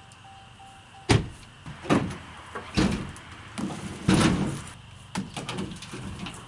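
A series of heavy thumps, four loud ones about a second apart, then several lighter knocks.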